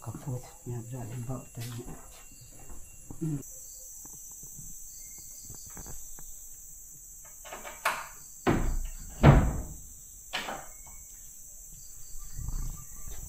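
Insects chirping steadily in a high drone, with a few loud thumps about eight to ten seconds in, the loudest just after nine seconds.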